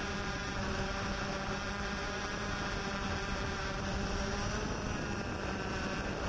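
Yuneec Typhoon H hexacopter's motors and propellers running in flight: a steady, many-toned buzz over a rough rumble, its pitch shifting slightly about four to five seconds in.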